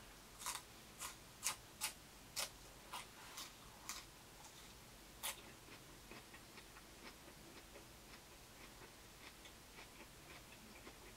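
Crisp crunches of a raw green vegetable stick being chewed, about two crunches a second for the first four seconds and one more a little after five seconds. Faint, evenly spaced ticks follow.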